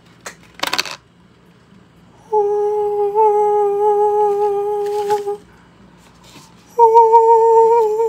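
A voice humming two long, steady notes, the second a little higher than the first, after a brief rustle about a second in.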